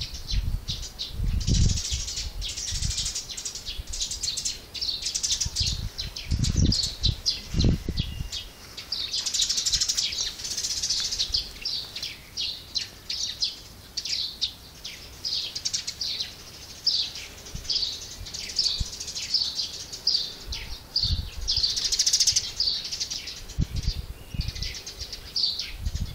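Songbirds chirping and singing, with many short high notes following one another. A few brief low rumbles come and go underneath.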